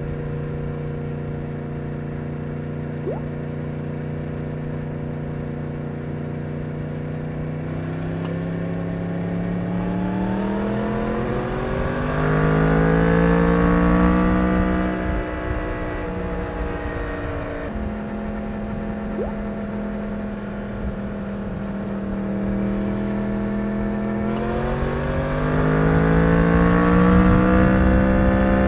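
Yamaha MT-10's crossplane inline-four engine through its stock exhaust, heard while riding: it holds steady revs for several seconds, then climbs in pitch under acceleration, eases off, holds steady again, and climbs once more near the end.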